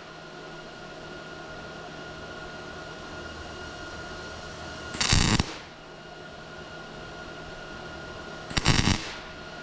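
MIG welder striking short tack welds: two brief bursts of arc noise, each about half a second, about five seconds in and near the end, over a steady hum.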